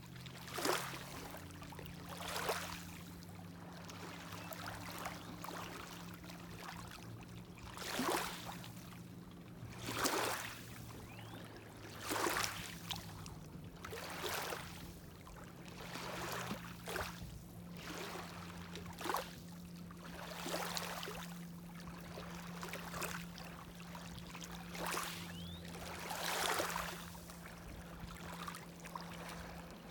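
Small lake waves lapping and splashing against the shore, one wash every two seconds or so, over the steady low hum of a boat motor.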